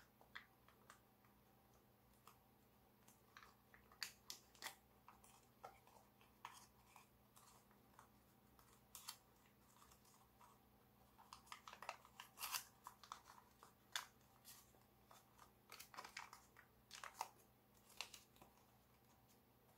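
Gold foil origami paper crinkling and crackling between the fingers as it is folded and pressed: scattered sharp crackles, busier in two stretches, in the middle and near the end.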